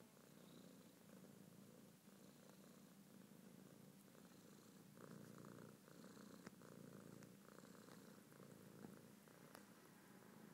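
Domestic cat purring faintly and steadily in a rhythmic in-and-out pulse while kneading a blanket, with a few light clicks.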